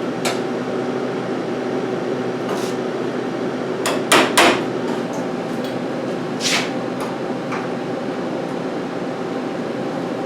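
Welding patch panels into a steel truck cab roof: a steady buzz, broken by several sharp clicks or taps, the loudest a pair about four seconds in.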